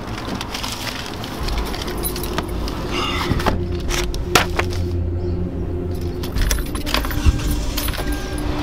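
Keys jangling and a run of sharp clicks and knocks as someone opens a Hyundai wagon's driver door, gets in and handles the keys, over a steady low hum.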